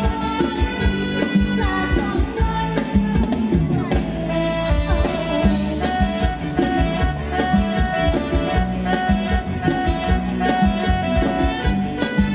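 Live band playing upbeat Thai ramwong dance music, with sustained instrument lines over a steady drum beat.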